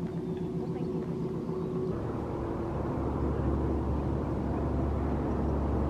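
A low, steady engine drone that grows louder and deeper about two to three seconds in.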